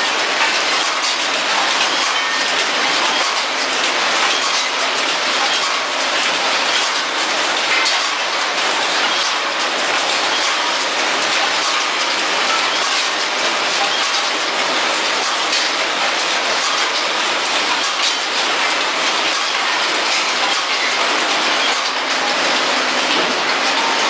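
Powder packaging machine running: a steady, dense mechanical clatter and hiss with fine, rapid clicking.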